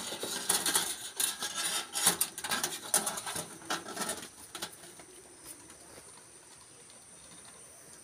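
Scratchy rustling and scraping, a dense run of clicks, as the phone brushes against the wire mesh of a bird cage; it dies down about four and a half seconds in.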